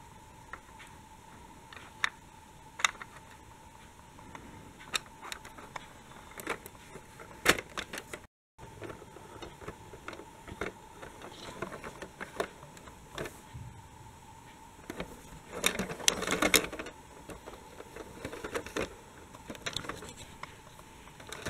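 Plastic toy regional train being handled: scattered clicks and knocks of its plastic body and wheels against hands and Lego track, with a busier stretch of rattling about two-thirds of the way through, over a faint steady hum.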